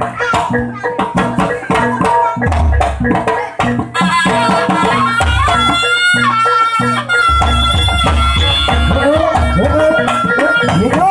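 Javanese jaranan music: hand drums and gongs keep a fast, dense beat, and about four seconds in a shrill reed horn, the slompret, comes in with a held, wavering melody over it.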